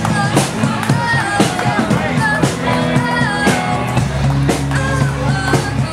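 Music with a steady drum beat, a sustained bass line and a melody line on top.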